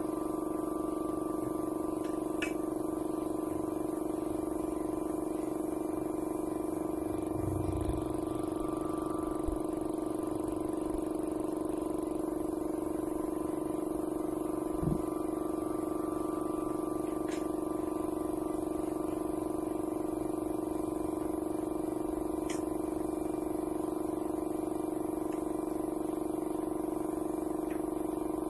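Electric air compressor running steadily for spray-painting furniture, a constant machine hum that pulses slightly in loudness. A few faint clicks and one soft thump midway.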